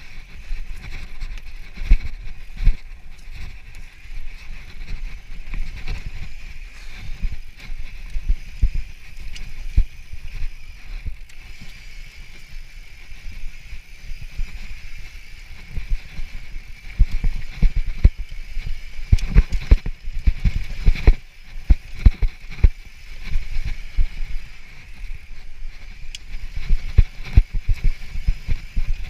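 Mountain bike descending rough rocky trail: irregular thuds and rattles as the wheels and suspension hit rocks and roots, tyres crunching on dry dirt, with a steady high buzz throughout. The knocks come thickest in a rough patch just past the middle and again near the end.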